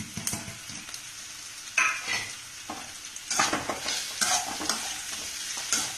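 Steel spoon stirring and scraping onions and capsicum in a metal kadai, in several irregular strokes over a steady sizzle of frying oil, as chilli powder and pepper are worked into the vegetables.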